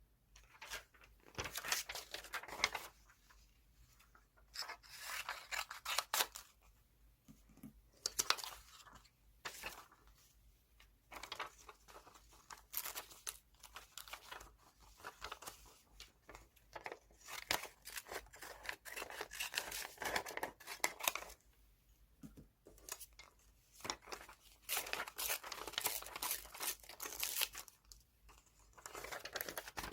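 Paper from a fashion magazine being torn by hand, in repeated short rips and crinkles with brief pauses between them.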